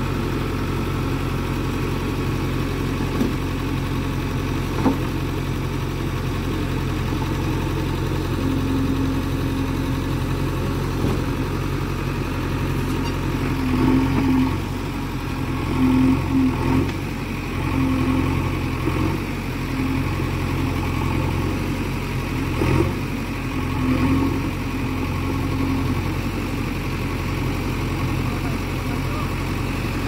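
JCB 3DX backhoe loader's diesel engine running steadily near idle, its note swelling briefly several times in the second half.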